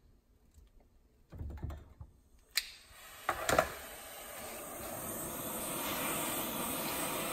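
A handheld gas torch is lit with a sharp click about two and a half seconds in, after a soft thump, and its flame then hisses steadily as it heats the brass pump housing so the housing expands to take a frozen bearing.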